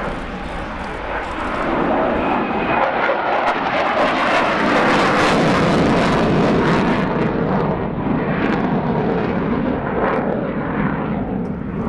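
Sukhoi Su-27 fighter's twin AL-31F turbofans passing during a flying display: jet noise that swells about two seconds in, is loudest around the middle, and carries a crackling edge.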